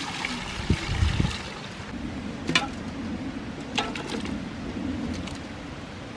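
Broth poured from a steel bowl into a large metal cooking pot, splashing for about the first second and a half, with a few dull knocks. Two sharp clinks follow a little later.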